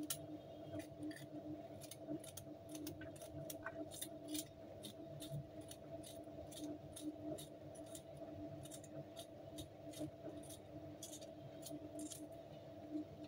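A small kitchen knife cutting a green capsicum (bell pepper) into small pieces in the hand, making a quick, irregular series of short snicks. A steady low hum runs underneath.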